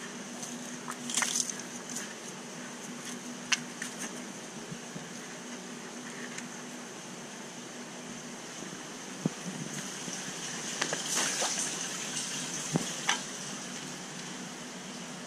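Steady hiss of a large aquarium's circulating water, with scattered knocks and rustles from a hand working in a plastic feed bucket and short splashes as fish food goes into the tank; the loudest bursts come about a second in and around eleven seconds in.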